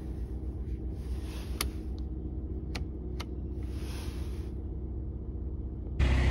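Volkswagen Passat's engine idling, a steady low hum, with three sharp clicks from the dashboard's rotary headlight switch as it is turned to the headlights position about one and a half to three seconds in. Near the end the engine sound suddenly becomes much louder.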